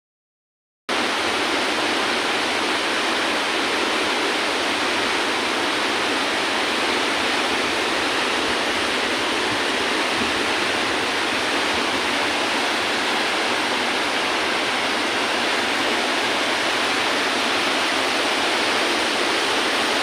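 Steady rush of water cascading over rocks, starting about a second in and holding an even level throughout.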